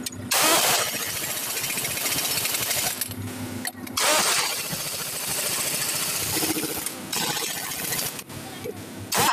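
Pneumatic impact wrench hammering on the wheel nuts of a truck's dual wheel. It runs in several long rattling bursts with brief pauses between them, the first pause about three seconds in.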